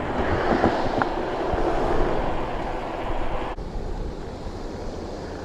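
Steady rushing road and wind noise from riding a bicycle, louder for the first three and a half seconds, then dropping suddenly to a lower level.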